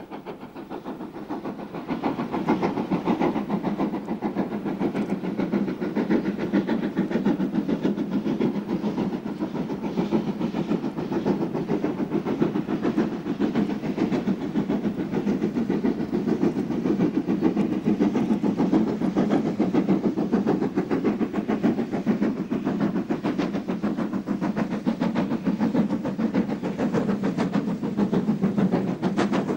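Steam exhaust of GWR Castle-class 4-6-0 No. 5029 Nunney Castle, a four-cylinder engine, working hard up a gradient with a train: a rapid, steady beat from the chimney. It grows louder over the first couple of seconds as the locomotive approaches, then holds steady.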